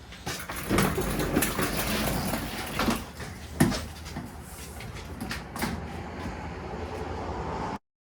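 Shop vacuum running inside a car interior, its nozzle knocking and scraping against the floor and panels. It cuts off suddenly near the end.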